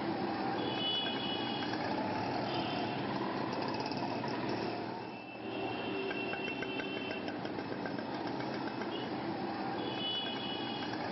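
Steady engine and traffic noise of running vehicles, with short high-pitched tones that come and go about four times over it.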